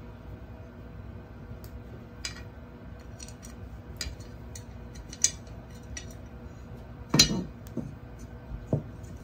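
Light metallic clicks and clinks as a 3D printer's metal bed carrier plate and rail parts are handled, with a louder clunk about seven seconds in and a smaller one near the end.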